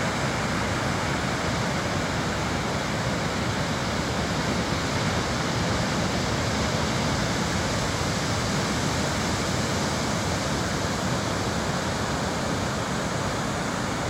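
Ocean surf breaking along a sandy beach, heard as a steady, unbroken rush of noise.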